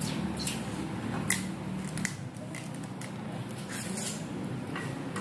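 People eating cooked lobster by hand: scattered short cracks and clicks of shell being bitten and pulled apart, with chewing, about one every second.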